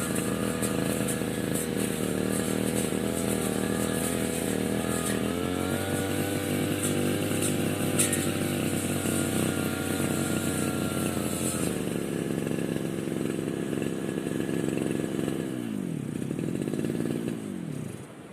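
Brush cutter's small petrol engine running steadily at speed, easing down a step about two-thirds of the way through, then winding down in a falling pitch and stopping near the end.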